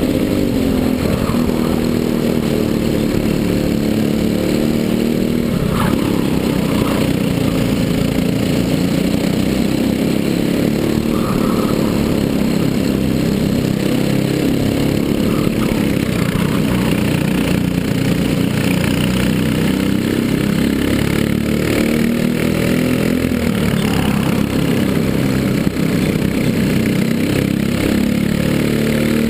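Briggs & Stratton LO206 single-cylinder four-stroke kart engine running flat out at race pace, heard onboard, its revs rising and falling through the corners, with another kart close ahead.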